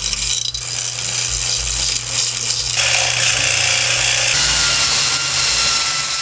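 An electric motor rigged as a homemade bench grinder runs with a steady hum. About three seconds in, a drill bit is held against its small grinding stone, giving a harsh rasp. For the last couple of seconds a corded electric drill whines as it bores into steel.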